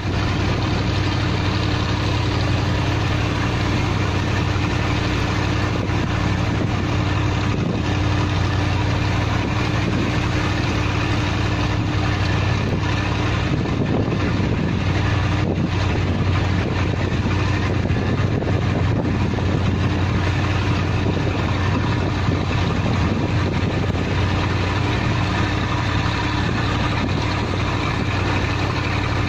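A river cruise boat's engine running steadily under way, a constant low hum over the rushing of water along the hull.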